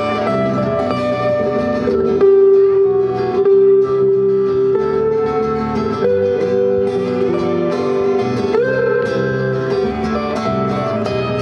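Live amplified band playing a song: strummed acoustic guitars and an electric bass, with a held melody line on top.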